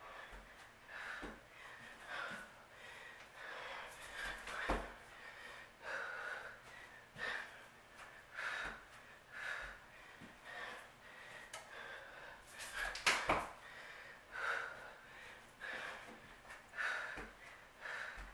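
A woman breathing hard from exertion mid-workout, a short forceful breath about once a second. A few dull thumps mark her feet landing on the carpet, the loudest near the two-thirds mark.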